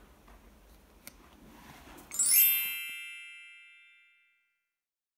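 Faint handling noise, then about two seconds in a bright sparkle chime sound effect: a shimmer of bell-like tones that rings out and fades over about two seconds, followed by dead silence.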